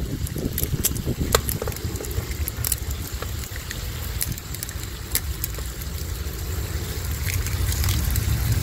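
Wind rumbling on the microphone, with sharp clicks of metal tongs and kitchen scissors against the griddle as beef is cut and turned, over the sizzle of meat frying on the hot plate.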